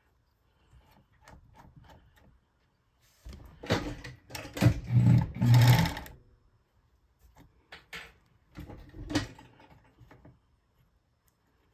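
An old Bonis Never Stop fur sewing machine stitching beaver leather, run for about three seconds a few seconds in. Scattered clicks and handling sounds from the machine and the leather come before and after.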